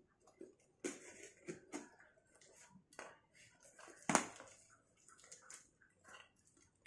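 A knife slitting packing tape on a cardboard box: irregular scrapes, short clicks and cardboard rustling, with one sharp metallic clatter about four seconds in as the knife is laid down on the concrete.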